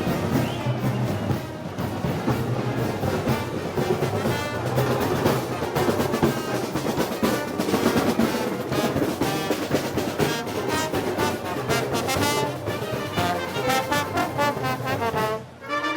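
Brass band with drums playing: trombones and trumpets over drum rolls and percussion. The music dips briefly near the end.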